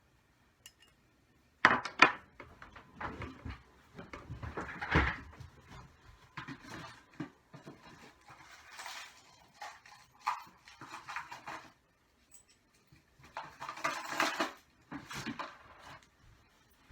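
Small metal engine parts and hand tools clinking, scraping and being set down, in irregular bursts of clicks and knocks, as a nitro RC engine is taken apart by hand.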